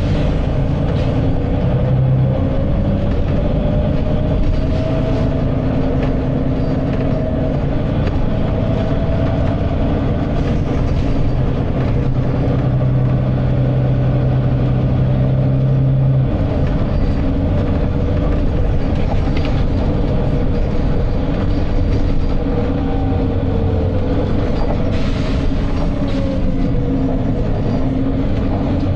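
Volvo B9TL double-decker bus's six-cylinder diesel engine and driveline running under way, with a whine that slowly rises and falls as the bus speeds up and slows down. A short hiss from the air system comes about 25 seconds in.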